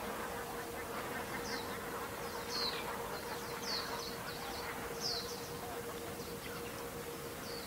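Birds calling in the open: a handful of short, high chirps that fall in pitch, over a steady noisy background with a faint constant hum.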